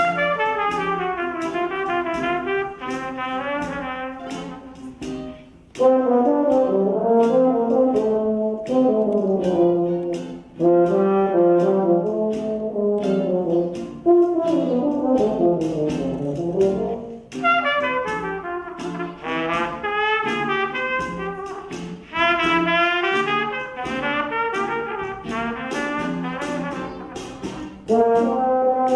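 Traditional New Orleans-style jazz band playing live: brass horns carry the melody over tuba and a steady cymbal beat from the drum kit, with trumpet and tuba playing together near the end.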